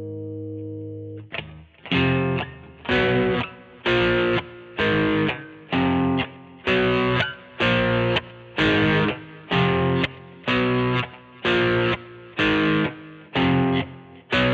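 Squier Vintage Modified Jaguar electric guitar played through an amp with distortion. A held chord rings and stops a little over a second in. Then short chords are struck in a steady rhythm, about every two-thirds of a second, each one choked off quickly.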